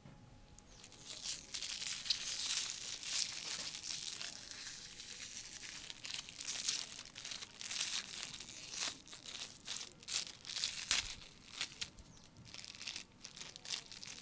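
Aluminium foil being crumpled and peeled open by hands: a dense run of sharp, high crinkling crackles that starts about a second in.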